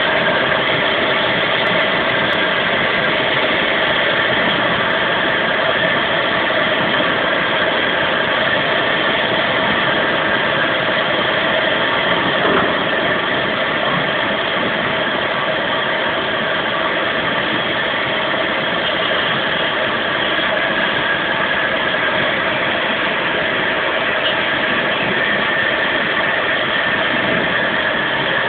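Adige LT120 tube laser cutting machine running: a steady mechanical hum and hiss with several steady tones layered in, unchanging throughout.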